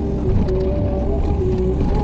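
Excavator's diesel engine running with a steady low rumble.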